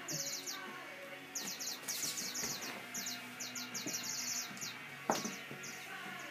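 Birds chirping in quick clusters of high, repeated notes, with faint music underneath.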